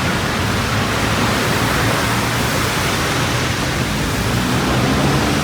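Steady rushing noise of rain and passing traffic on a wet city road, with a low engine hum underneath.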